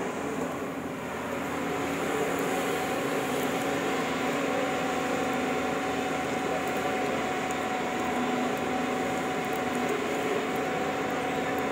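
Heavy earthmoving machinery's engine running steadily, a constant drone that holds one pitch, a little quieter for the first second or two.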